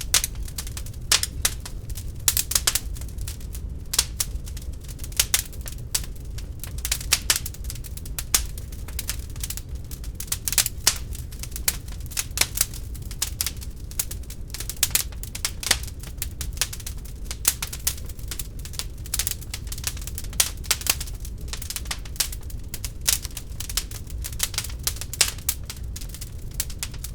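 Wood fire burning in a fireplace, crackling and popping continually in quick irregular clicks over a steady low rumble of the flames.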